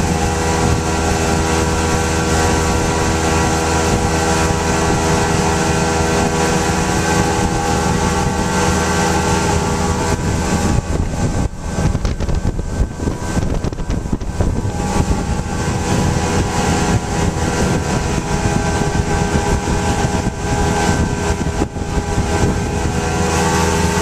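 Mercury outboard motor running steadily at high speed, driving a fishing boat, with the rush of the hull and wake. For about ten seconds in the middle, a choppy rush of water spray and wind rises over the engine's steady tone.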